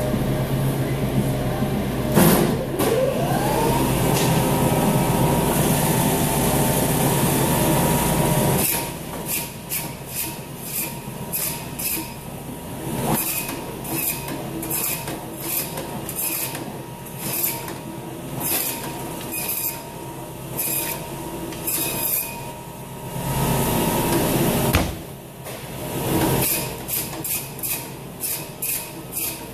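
Meat band saw cutting pork loins into chops. The motor's whine rises to a steady pitch about two seconds in. From about a third of the way through, the running saw is broken by frequent short knocks and clicks as the blade goes through the loin and the chops are handled.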